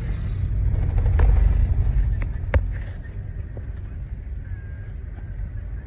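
Deep, low rumble of a road vehicle's engine and exhaust, likened to snoring, swelling louder about a second in and then easing off. A few sharp clicks come around two seconds in.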